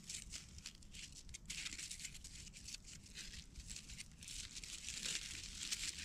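Footsteps crunching and rustling through dry fallen leaves, a run of irregular steps.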